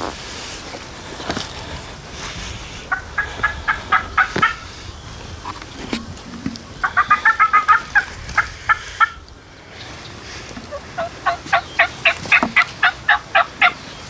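Turkey calling: three runs of quick, evenly spaced yelping notes, each run lasting one to two seconds, the last one near the end the longest.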